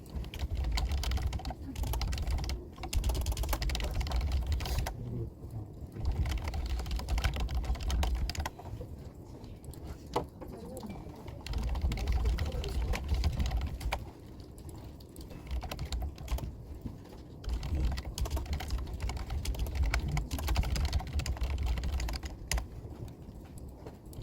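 Typing on a computer keyboard: rapid key clicks in several runs of a few seconds each, with short pauses between them.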